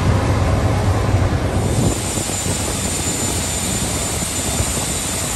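Aircraft engine noise, a loud steady rush. About two seconds in the sound changes abruptly: a low hum drops away and a brighter hiss with a steady high whine comes in.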